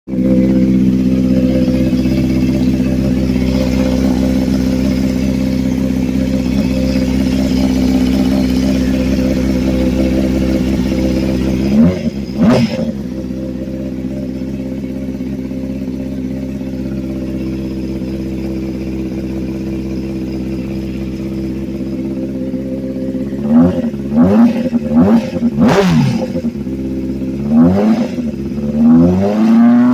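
Honda CBR600RR's inline-four engine, newly installed, idling steadily. It is revved briefly once about twelve seconds in, then blipped five or six times in quick succession near the end. The owner is asking about a sound from the fresh engine that they cannot place.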